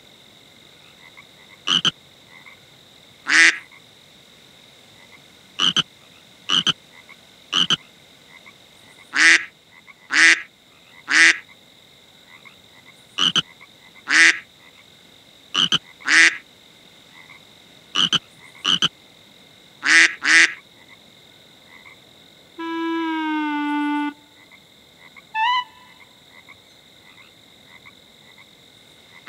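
Frog croaking: short croaks repeated about once a second, with uneven gaps. About three-quarters of the way through comes one longer, held honk-like call with a slightly falling pitch, then a short pitched call.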